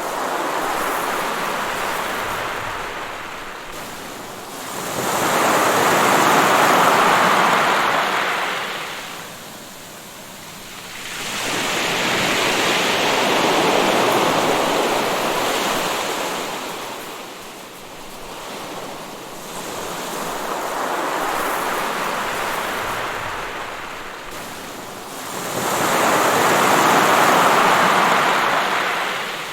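Waves breaking and washing onto the shore, one every five to six seconds, each rising to a rush and falling away.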